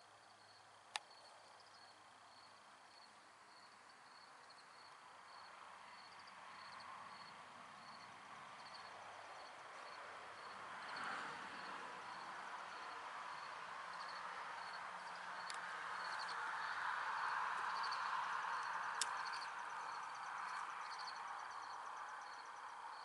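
Crickets chirping in a steady, even rhythm, over a broad rushing noise that slowly swells to its loudest well past halfway and eases off near the end. A few sharp clicks cut in, one about a second in and another near the end.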